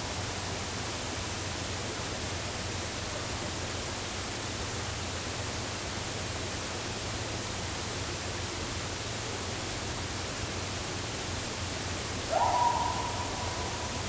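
Steady hiss of an outdoor night-time field recording. Near the end, a single louder call rises quickly in pitch, then holds one steady high note for over a second as it fades.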